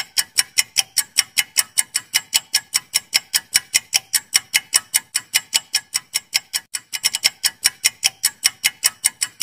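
Countdown-timer ticking sound effect: fast, even clock-like ticks, about five a second, with a brief stumble in the rhythm about two-thirds of the way through.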